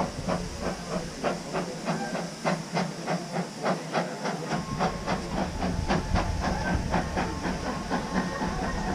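2 ft gauge steam locomotive puffing as it pulls away: even exhaust beats about three a second over a steady hiss of steam, fading near the end.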